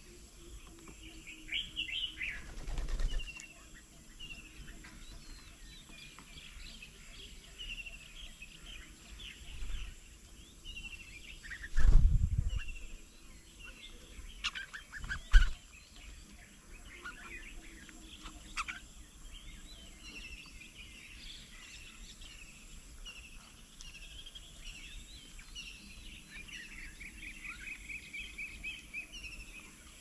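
Several small birds chirping and calling, short notes coming one after another, with a fast run of repeated notes near the end. Two loud low thumps break in, about twelve and fifteen seconds in.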